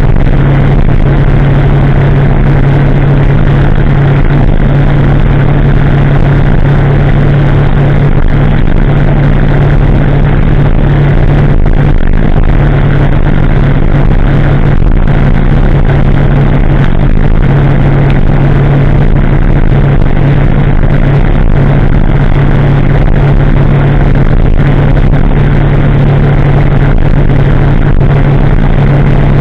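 2016 Kawasaki ZX-10R's inline-four engine running at a steady pitch through its de-catted aftermarket exhaust, the bike cruising at an even speed with no revving or gear changes.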